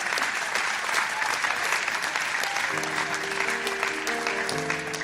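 A church congregation applauding. About two and a half seconds in, held instrumental chords come in under the applause as the next song's introduction begins.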